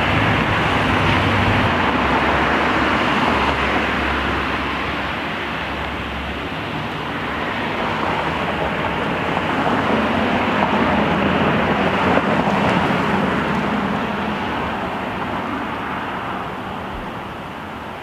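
Car traffic passing on a street: a steady wash of tyre and engine noise that swells as cars go by, once near the start and again about ten seconds in, then slowly fades.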